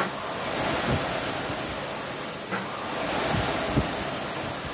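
Concept2 rowing machine's air-resistance flywheel whooshing, the rush swelling and fading with each stroke at about 24 strokes a minute.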